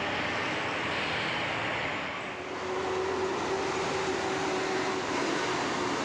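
Heavy vehicle running, most likely a bus climbing the hill, a steady engine and road noise; about halfway through a steady hum-like tone joins it and holds.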